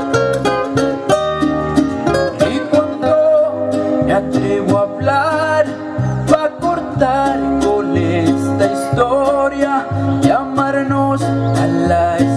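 A song with plucked guitar lines over bass, and a male voice singing at times.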